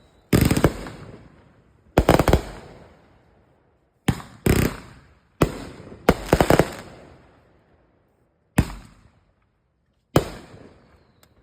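Consumer fireworks going off: about eight loud bangs at uneven gaps of one to two and a half seconds. Some come as quick clusters of reports, and each fades over about a second.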